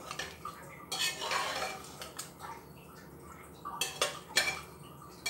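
A ladle stirring thick rajma and egg curry in a pot, scraping along the pot, with a few sharp knocks against the pot about four seconds in and again at the end.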